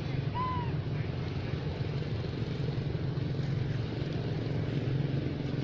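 Steady low rumble, with one short squeak that rises and falls about half a second in.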